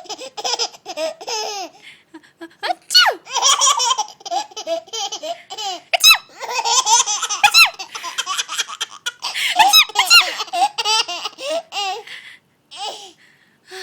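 Baby laughing hard, in repeated high-pitched fits with short breaths between them, dying down near the end.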